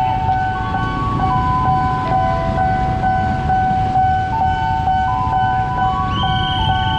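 Level-crossing warning alarm sounding while the barriers are down: electronic tones stepping between a few pitches, with a higher tone joining near the end. Under it runs the low rumble of motorcycle engines idling.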